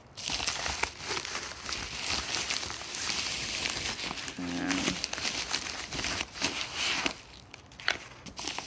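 Plastic mailer bag crinkling and rustling as it is worked open by hand. About halfway through there is a short low hum.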